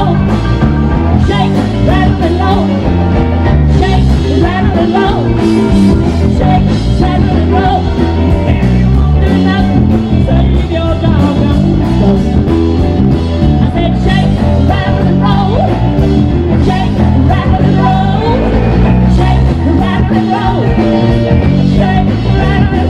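Rock and roll song with a singer over a steady drum beat and a walking bass line.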